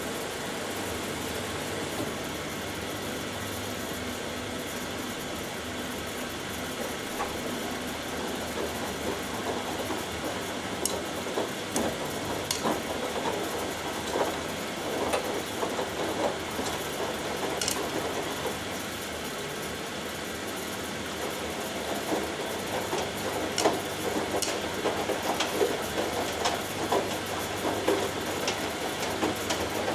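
Two front-loading washing machines running, the Hoover Dynamic Next in its rinse: drums turning over a steady motor hum, with water sloshing and wet laundry thudding in irregular bursts, busiest about a third of the way in and again in the last third.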